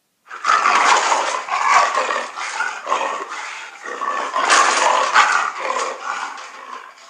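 Jaguar roaring and growling: a run of repeated calls, loudest about two-thirds of the way through, then fading.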